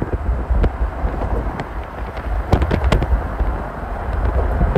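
Wind buffeting the microphone over a deep, steady rumble, with irregular sharp clicks and knocks, a few of them louder about two and a half to three seconds in.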